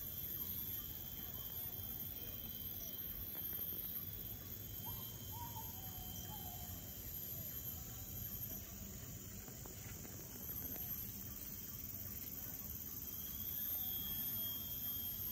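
Steady high-pitched chorus of insects in the surrounding forest, with a faint short bird call about five seconds in.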